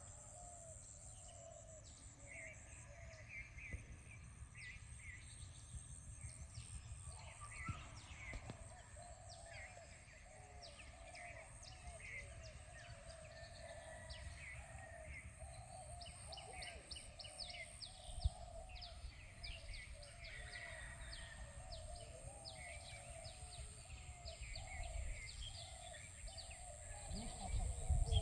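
Faint outdoor ambience of birds chirping over and over, with many short high chirps and a steady high-pitched hum. A low wind rumble on the microphone grows louder near the end.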